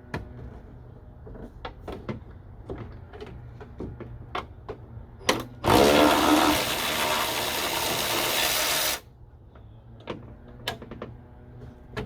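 Light metal clicks and knocks of tools at the hinge bolts, then a power tool runs for about three seconds, loudest as it starts, while the hinge bolts are being removed.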